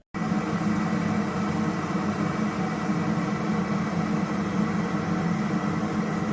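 Stainless steel electric kettle heating water: a steady, loud rumble and hiss that starts abruptly and holds even throughout.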